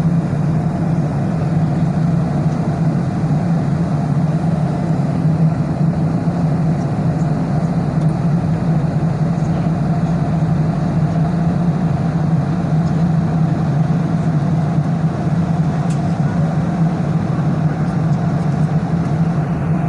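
Airplane in flight heard from inside the cabin: a steady, unbroken engine drone with a strong low hum.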